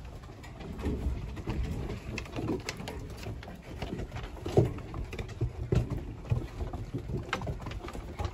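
German shepherd–husky mix puppies scampering on a wooden deck: many quick clicks and patters of small claws and paws on the boards, mixed with short low puppy grumbles during play.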